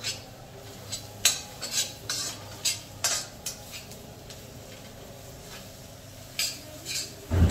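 A spatula scrapes and knocks against an iron kadhai as thick onion-spice masala frying in butter is stirred, over a light sizzle. The strokes come about every half second for the first few seconds, pause, then come a few more times near the end.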